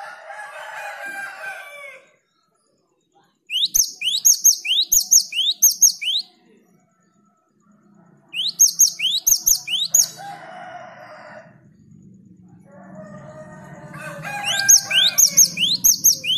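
Cinereous tit (gelatik batu) singing in three fast, ringing bursts about two and a half seconds long, each a rapid run of repeated high notes sweeping downward, with short pauses between. Lower, drawn-out calls sound between the bursts, one of them near the end under the last burst.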